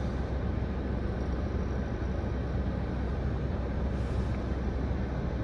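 Steady low rumble of road traffic heard from inside a car stopped at an intersection, as cross traffic, a large truck and then cars, passes in front.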